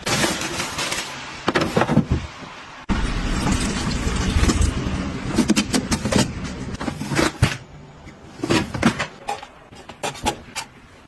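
Household objects being handled and set down: scattered clicks and knocks, with a stretch of steady rushing noise from about three seconds in to about seven and a half seconds in.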